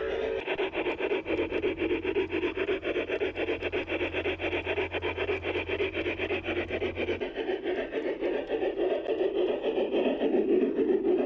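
G scale model train car rolling along garden railway track, heard from a camera riding on the car: a steady, rapid rhythmic rumble of the wheels on the rails, with a faint low hum for much of it.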